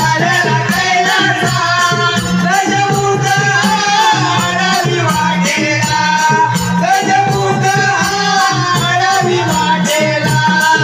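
Marathi jakhadi folk devotional song: sung held notes over a steady, fast jingling percussion beat.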